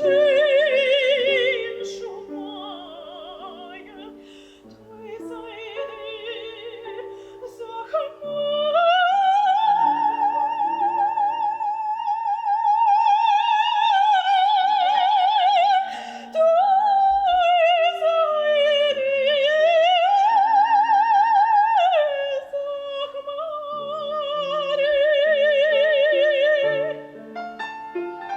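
Operatic soprano singing with a wide vibrato over piano accompaniment. A quieter passage gives way, about a quarter of the way in, to long high sustained notes, which end shortly before the close.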